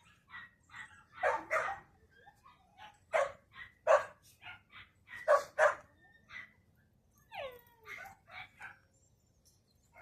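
Several kennel dogs barking in short, irregular bursts, some in quick pairs, with a falling whine about seven and a half seconds in.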